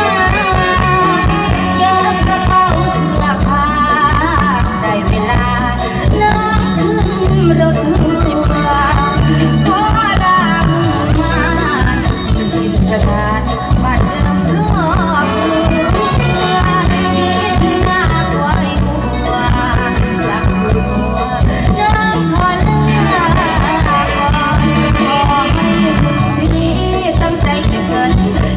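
Amplified live mor lam music: a woman singing over a band with a steady bass beat.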